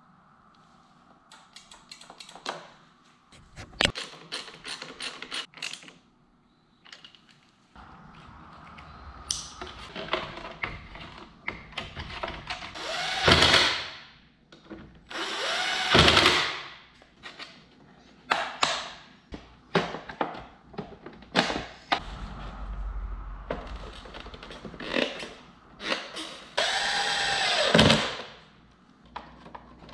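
Cordless drill-driver run in three short bursts: about halfway through, again a couple of seconds later, and near the end, each winding up and back down in pitch as it drives in the bolts of a motorcycle's plastic tail fairing. Between the runs come scattered clicks and taps of tools and plastic panels.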